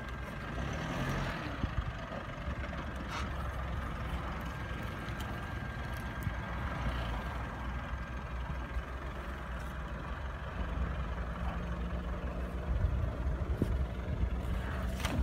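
Mitsubishi Pajero Sport SUV engine running at low revs as the vehicle crawls over uneven ground; the engine note gets steadier and louder about ten seconds in.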